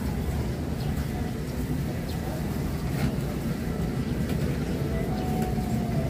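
Outdoor ambience: a steady low rumble with a few faint ticks, and a faint held tone near the end.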